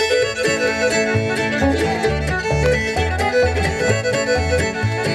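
Bluegrass string band playing a reel, the fiddle carrying the melody over guitar and mandolin. Upright bass notes fall about twice a second from about a second and a half in.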